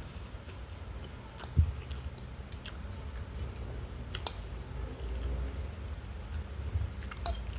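Close-up chewing and wet mouth sounds of someone eating, with scattered small clicks and smacks and a single dull thump about a second and a half in.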